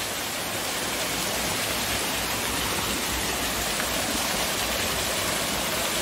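Small waterfall splashing down a rocky stream bed, a steady rushing of water.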